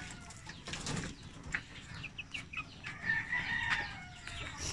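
Pigeons flapping their wings in a wire loft, with a few short, high bird calls about two seconds in.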